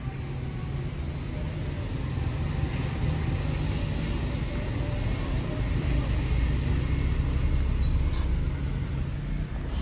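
A truck's diesel engine running as the truck rolls along, heard from inside the cab. The low rumble grows louder about halfway through as the engine pulls harder, and there is a single sharp click near the end.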